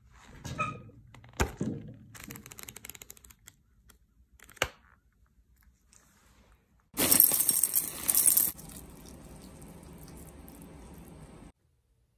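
Handling noises from a spiral sketchbook being picked up and turned over on a table: a few sharp knocks and light clinks with rustling, then a loud rustle about seven seconds in, followed by a steady hiss that cuts off suddenly near the end.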